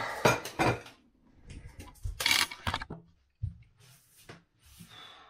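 Dishes handled at a stainless steel kitchen sink: a dinner plate with fork and knife set down, giving a few clinks and knocks, with a short louder rushing noise about two seconds in.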